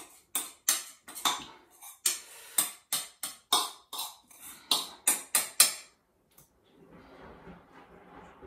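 A spoon knocking and scraping against a small bowl in a quick, irregular run of sharp clinks, digging out flax egg that has set clumpy and hard. The clinks stop about six seconds in.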